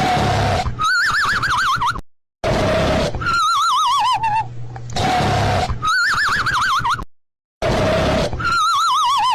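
Looped cartoon snoring sound effect: a noisy snore on the in-breath followed by a wavering, warbling whistle on the out-breath, the whistle alternately rising and falling in pitch. About four snore-and-whistle cycles, one every two and a half seconds or so, with two short gaps of silence.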